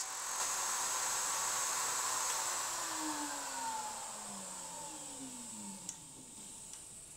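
Router in a router table running with no load, then switched off: its whine drops steadily in pitch and fades as the motor and bit spin down from about three seconds in.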